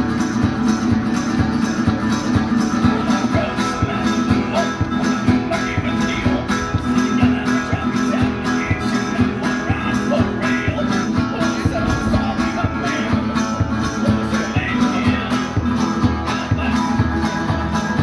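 Street busker playing a resonator guitar with harmonica over a steady beat, in a country-blues style.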